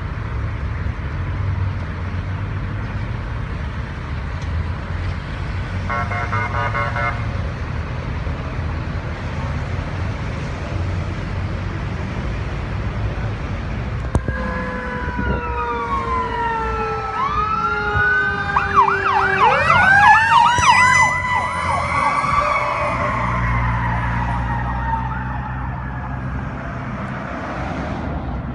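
Ambulance responding with sirens over a steady engine and road rumble: a brief horn blast about six seconds in, then from about halfway an electronic siren's falling tones and a fast yelp, and a mechanical Q-siren winding up sharply and slowly coasting down.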